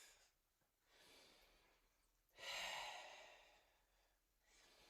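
A person breathing audibly while exercising: a quiet breath about a second in, a louder breathy exhale about two and a half seconds in that fades away, and another quiet breath near the end.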